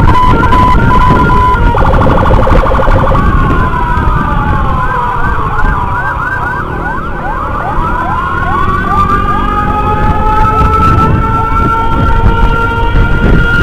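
Electronic emergency sirens, more than one at once, changing patterns. First comes a steady tone with a few beeps, then a fast repeating yelp laid over a slow wail that falls and rises again, with a loud low rumble of road and wind noise underneath.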